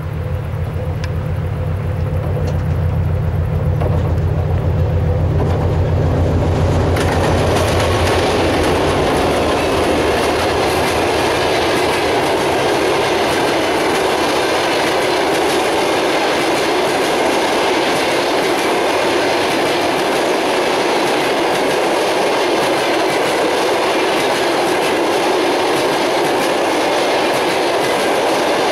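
2TE10U twin-section diesel locomotive passing close by. Its deep engine drone dominates for the first seven seconds or so, then gives way to a steady rush of passenger coaches' wheels rolling on the rails.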